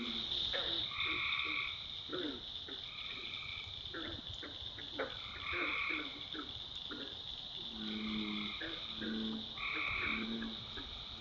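Night chorus of frogs and toads calling in a swamp: a steady high trilling drone, with repeated half-second calls and short quick notes. Deeper croaks join in near the start and again in the last few seconds.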